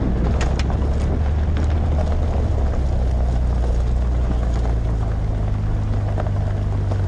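Car rolling slowly over fresh loose gravel: a steady low engine hum under the crunch of tyres on stone, with a few sharp stone clicks in the first second or two.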